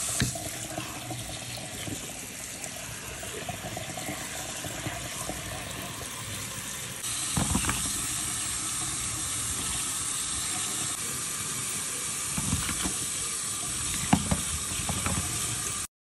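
Tap water running steadily into a plastic colander of cut vegetables in a stainless steel sink. The stream gets louder and brighter about seven seconds in, with a few light knocks as the vegetables are handled. It cuts off abruptly just before the end.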